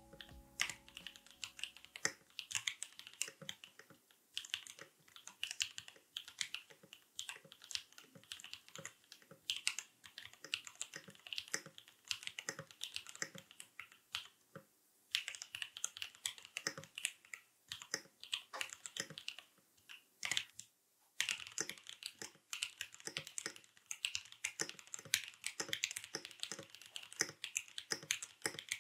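Typing on a Swagkeys Transition custom mechanical keyboard with a carbon fiber plate, soft gasket mount and modded, re-lubed KNC Red Jackets switches: a steady run of quick keystroke clacks, with a brief pause about twenty seconds in.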